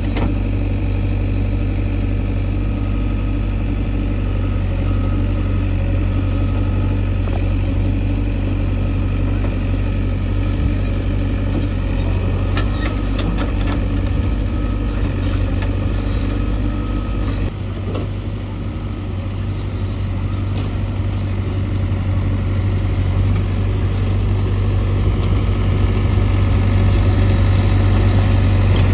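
JCB 3DX backhoe loader's diesel engine running steadily at low revs, with a couple of light knocks. It dips briefly a little past halfway, then gradually picks up toward the end.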